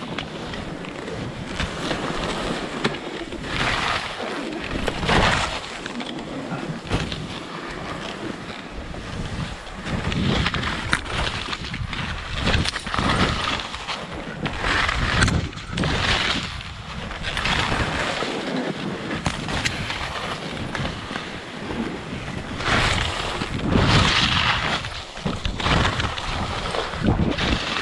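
Skis scraping and hissing through snow in a run of quick turns, the noise swelling with each turn, with wind rushing over the microphone.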